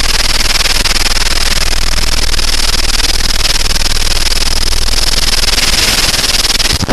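Helicopter in flight heard from inside the cabin: a loud, steady hiss of engine, rotor and wind noise with a high whine and a low drone underneath, cutting off suddenly at the end.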